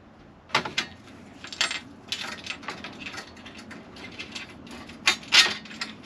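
Irregular small clicks and light metallic clatter as a screw and the light switch's plastic and metal parts are handled and fitted, with the loudest clicks a little past five seconds in.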